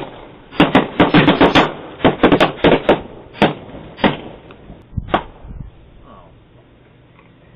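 Balloons popping in a rapid string of sharp bangs, about fifteen crowded into the first three seconds, then a few single pops, the last a little past five seconds in.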